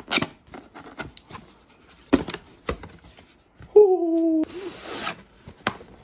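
Cardboard packaging being handled and opened: sharp taps and scrapes of the box flaps and inner box, a short falling squeak about four seconds in, and a brief rubbing hiss just after it.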